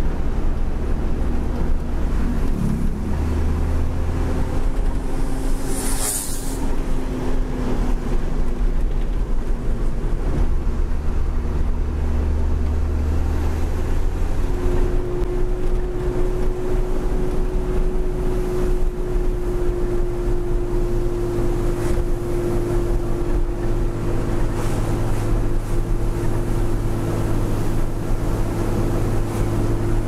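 Truck engine running on the road, heard from inside the cab along with road and wind noise. The engine note shifts pitch a few times and steps up about halfway through. A short hiss comes about six seconds in.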